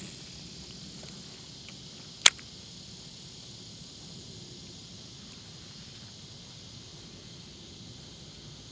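Steady, high-pitched insect chorus across the lake, with one sharp click about two seconds in.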